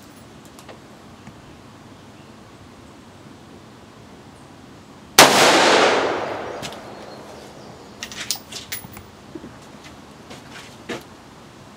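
A single shot from a Colt CSR-1516 semi-automatic AR-15 rifle in 5.56mm/.223, about five seconds in, with a long echoing tail that fades over about a second and a half. A few light clicks follow near the end.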